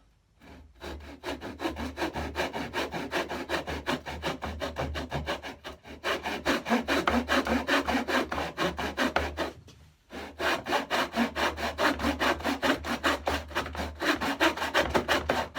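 Hand saw cutting into a piece of wood with rapid, even back-and-forth strokes, pausing briefly about ten seconds in; the cut is being taken down to a marked depth line.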